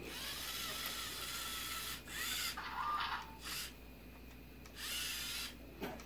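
LEGO Mindstorms EV3 robot's electric servo motors running in several short bursts as the remote-controlled robot drives on its tracks: a long run at first, a few brief ones after two seconds, and another near the end.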